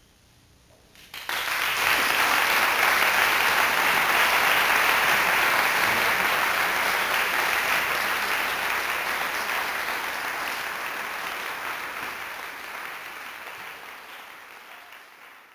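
Audience applauding: clapping breaks out suddenly about a second in after a hush, stays loud for several seconds, then slowly dies away toward the end.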